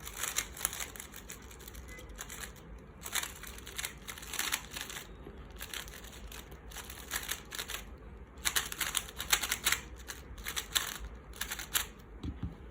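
GAN 11M Pro speed cube being turned quickly in runs of moves, its plastic layers clicking and clacking in dense bursts with short pauses. The turning spreads freshly applied lube through the pieces.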